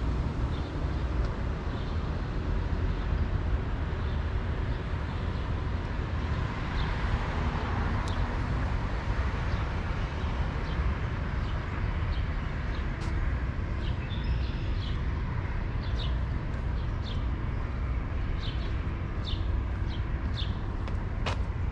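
Street ambience: a steady low traffic rumble that swells as a car goes by about seven to nine seconds in. Over the second half, small birds chirp again and again in short high calls.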